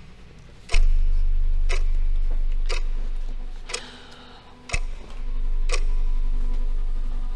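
A clock ticking loudly, one tick a second, over a deep low drone that swells in about a second in, dies away, and swells again near the five-second mark.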